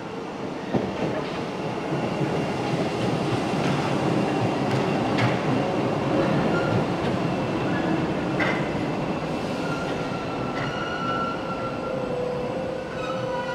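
Paris Métro train running through the station with a steady rumble that grows louder over the first few seconds, and high squealing tones from the train coming in near the end.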